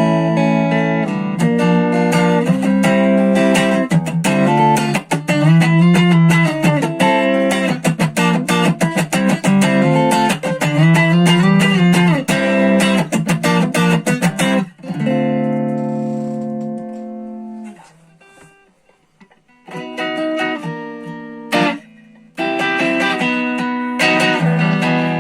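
SX Vintage Series Telecaster-style electric guitar played clean through a Marshall MG10 practice amp: picked single-note lines with string bends that rise and fall back. About two-thirds through a held note rings and fades almost to silence, then a few chords and more picking follow.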